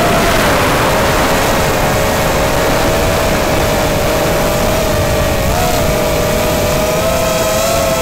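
Small multirotor drone's electric motors and propellers whining steadily in flight, over a steady rushing noise. The pitch dips slightly in the first second and wavers briefly about five and a half seconds in.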